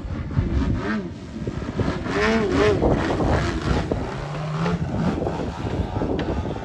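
Pilot RC Extra 330LX model aerobatic plane's GP123 two-stroke petrol engine with tuned exhausts, running loud, its pitch rising and falling repeatedly as the plane manoeuvres through the air.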